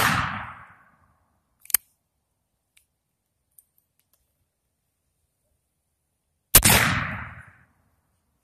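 Two shots from a black-powder cap-and-ball revolver, each a sharp report with a ringing tail of about a second; the first falls right at the start and the second about six and a half seconds later. A single short, sharp click about a second and a half after the first shot. The loads fire despite having been doused with water.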